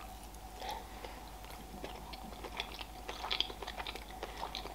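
Close-miked chewing of a mouthful of sushi roll: soft wet mouth clicks and smacks, coming thicker a little after three seconds in.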